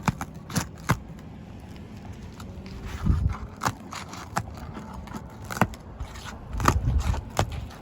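Asphalt shingles being pried loose with a roof snake: scattered sharp clicks and crackling scrapes as the sealant strip gives way, with two heavier rough scrapes about three seconds in and near the end.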